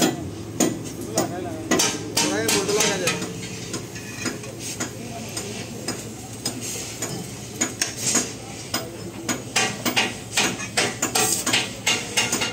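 Steel excavator track chain parts (links, pins and bushings) being struck and handled with hammers and bars: repeated metal clanks and clinks, coming faster and more regularly near the end.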